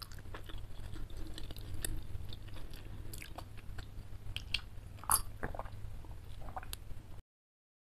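Close-miked chewing and wet mouth sounds from the last mouthful, then sips and swallows of water from a glass mug, with the loudest mouth sound about five seconds in. A steady low hum runs underneath, and all sound cuts off abruptly near the end.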